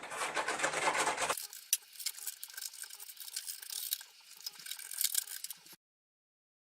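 A stick scraping and rubbing wet Gorilla Glue over 6 mm plywood, spreading it and mixing it with water: irregular dry scratchy strokes. The sound cuts off suddenly near the end.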